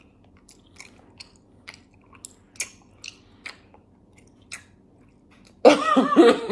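A person chewing candy: a string of short, separate clicks and crunches over about five seconds. Near the end a loud voice sound breaks in.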